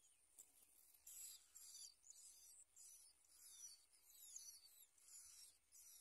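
Bar-winged prinia nestlings' begging calls: faint, rapid, high-pitched chirps in repeated short bursts, starting about a second in and going on steadily as the chicks beg for food.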